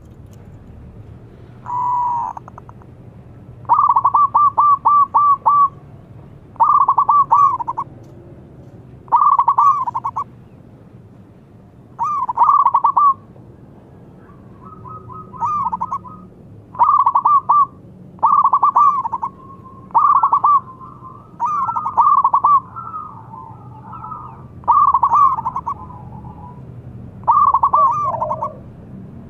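Zebra dove (perkutut) cooing: short phrases of quick, rolling staccato notes, repeated about a dozen times every two seconds or so, with fainter calls overlapping them in the middle.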